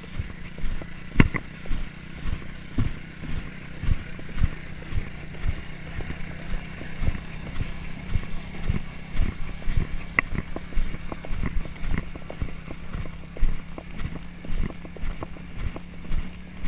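A horse's hooves thudding on a dirt track, heard from the saddle, in an uneven rhythm of one to two strikes a second, with a steady low engine hum from a quad bike running alongside.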